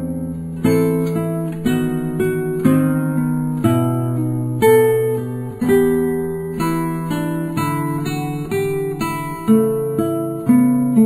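Background music: acoustic guitar picking a steady melody, each note plucked and left ringing.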